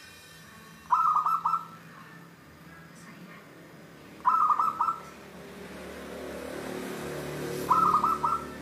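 Zebra dove (perkutut) cooing its song three times, each phrase a quick run of short notes lasting under a second, about three and a half seconds apart.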